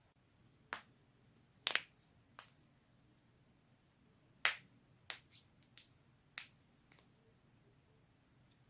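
Neck joints cracking: about nine sharp, separate pops at uneven intervals. The loudest are a quick double pop just under two seconds in and a single pop about four and a half seconds in.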